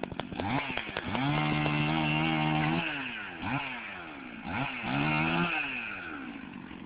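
Two-stroke chainsaw engine pulsing at idle, then revved up and held high for about a second and a half. It is then blipped up and down several times before dropping back toward idle.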